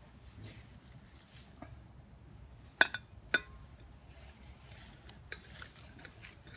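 A few sharp metallic clinks over faint background noise, the two loudest close together about three seconds in, followed by lighter taps.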